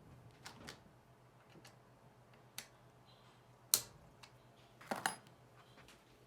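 Scattered light metallic clicks and clinks of a hand tool working the brake pad hardware as it is tightened, the sharpest click a little under four seconds in and a quick double clink about five seconds in.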